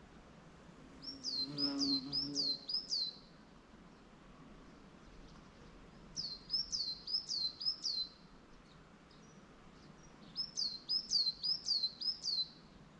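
A songbird singing three short phrases, each a quick run of about five clear, high, down-slurred whistled notes, with pauses of a few seconds between phrases.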